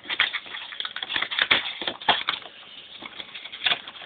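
Cardboard packaging of an iPad 2 box being handled, with irregular rustling, scraping and small clicks as the card documentation sleeve is worked loose from the inner tray.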